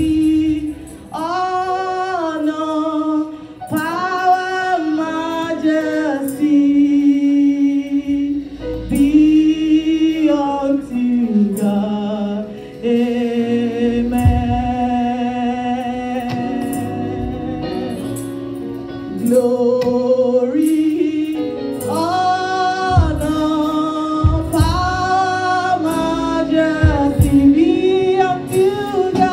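Gospel praise and worship singing: a woman sings the lead into a microphone in long, held, gliding notes. Low thuds come in about halfway through.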